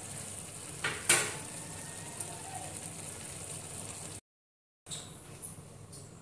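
Rice and masala water simmering in a large aluminium pot on a gas flame: a steady bubbling hiss, with two sharp knocks about a second in. Near the end it goes quieter, with light metal clicks as a flat iron tawa is set on the stove grate.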